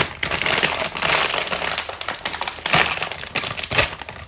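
Crinkly snack bag of Pringles Mingles being handled and rummaged in: a dense, continuous crinkling with a few louder crackles.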